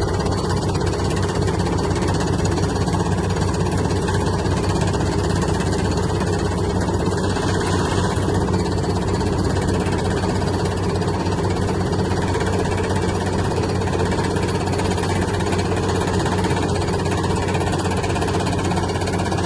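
Heavy diesel engine of construction machinery running steadily, with an even low hum that holds throughout.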